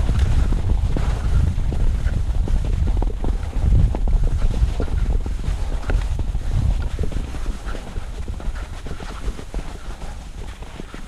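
Wind buffeting the microphone, with skis scraping and chattering over bumpy, sun-cupped spring snow. The wind rumble eases toward the end.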